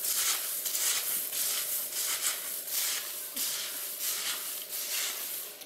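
Hands tossing and turning a heap of dry, crisp fried snack mix (mixture of sev, flattened rice, peanuts and curry leaves) on newspaper: a crisp rustling swish that comes in repeated strokes, about three a second.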